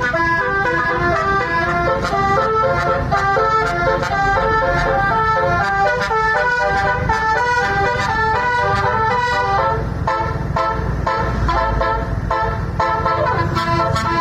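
A 36-note telolet bus horn playing a fast melody, its tones stepping up and down several times a second over a steady low rumble.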